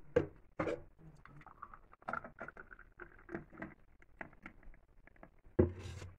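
Thick mango shake poured from a blender jar into a glass: an irregular patter of glugs and splashes, with a louder knock near the end.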